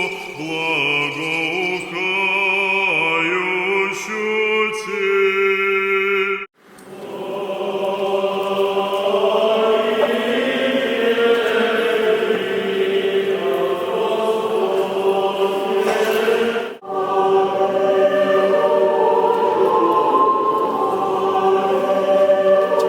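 Choir singing Orthodox liturgical chant in long, held notes. It cuts off abruptly twice, about six and a half seconds in and again about ten seconds later, and resumes straight away with fuller singing each time.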